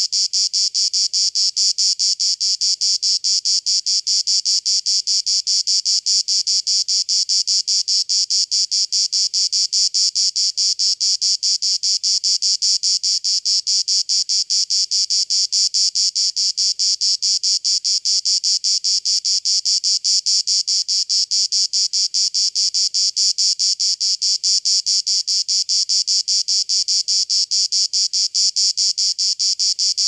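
Cicada calling: a steady, high-pitched buzz pulsing rapidly and evenly, without a break.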